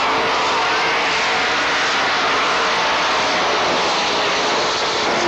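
Race cars' engines running at speed as the field laps the track, a steady blended engine noise with faint pitch shifts from cars passing.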